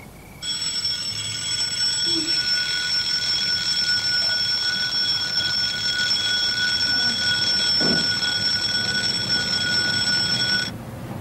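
Alarm clock ringing continuously for about ten seconds, then cutting off suddenly near the end.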